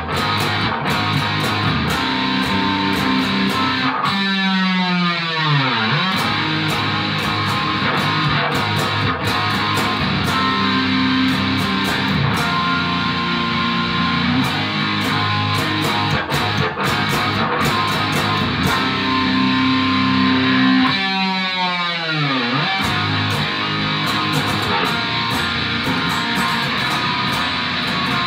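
Distorted Ibanez RG550 electric guitar playing a rock song through a Peavey Renown 400 amp. Twice, at about four seconds and again past twenty seconds, a sweeping swoop falls from high to low through the sound.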